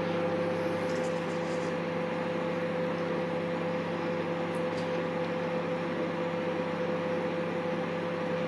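Microwave oven running a heating cycle, giving a steady hum with a constant mid-pitched tone.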